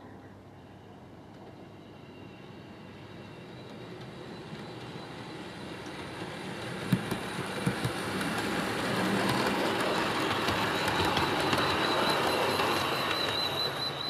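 Hornby OO gauge model HST train running along the track, growing louder as it approaches and passes. There are a few sharp wheel clicks over the rail joints about seven seconds in, and a steady high whine in the later part.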